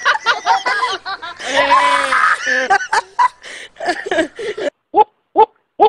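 People laughing hard in quick high-pitched bursts, thinning out to a few short separate laughs near the end.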